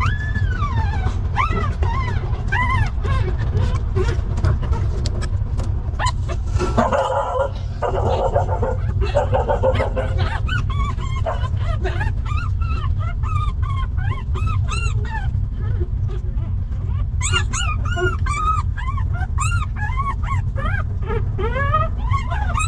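Newborn puppies whimpering and crying, many short high-pitched squeaky cries one after another, over a steady low hum.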